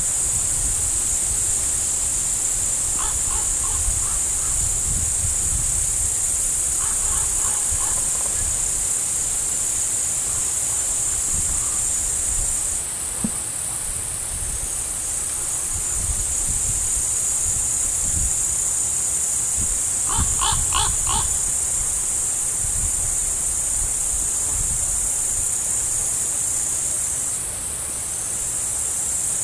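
Crickets chirping in a dense, steady, high-pitched trill. A bird calls four times in short rapid series of notes, most clearly about two-thirds of the way through.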